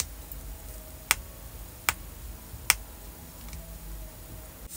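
Three light, sharp clicks about a second apart as hands pick leftover heat-transfer vinyl carrier film off ironed-on letters with a pointed weeding tool.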